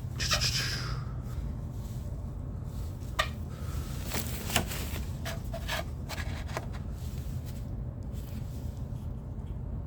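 Handling noise: a brief rub, then a handful of scattered light clicks and taps, over a steady low hum.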